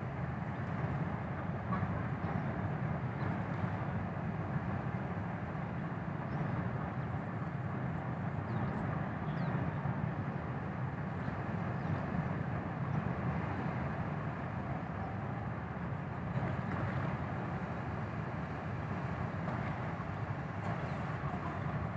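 Steady low rumble of ship engines across the water as a large passenger ship manoeuvres away from the quay with a tugboat alongside.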